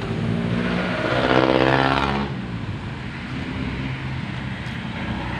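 A passing motor vehicle's engine, growing louder about a second in and fading away after about two seconds, over a steady low rumble of street noise.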